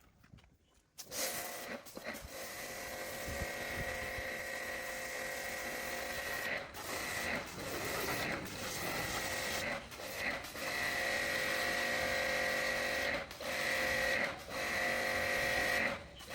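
A small electric power tool starts about a second in and runs with a steady whine. It drops out briefly about six times, then picks up again.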